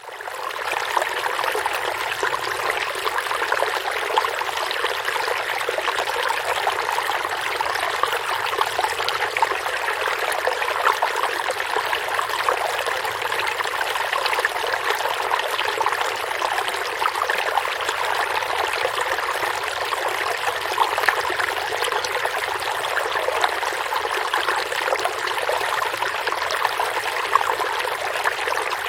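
A stream of water flowing over rocks, with a steady babbling and trickling that fades in during the first second.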